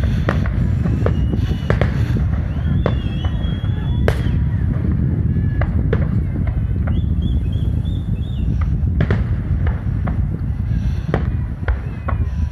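Aerial fireworks shells launching and bursting: a rapid, irregular run of sharp bangs and crackles over a constant low rumble.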